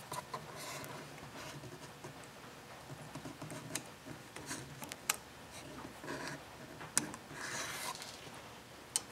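A small hand tool scraping and picking at the snap ring on a Harley-Davidson clutch lever pivot pin to work it off: faint scratching and fiddling with scattered sharp clicks.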